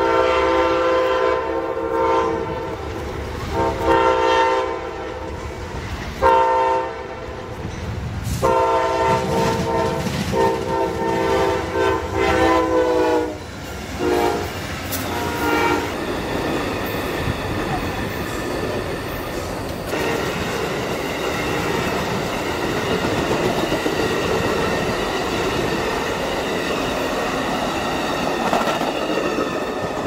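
Amtrak passenger train's horn sounding a chord in a series of blasts over about thirteen seconds, the later blasts held longer, then the steady noise of the train passing.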